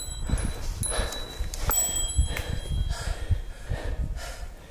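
Irregular low thumps and rumble on the microphone of a handheld camera being carried along a forest trail, with a few faint, thin, steady high tones above.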